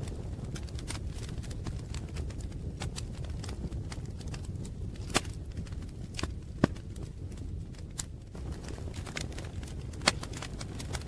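Wood fire crackling: a steady low rumble with sharp pops at irregular intervals, a few of them louder than the rest.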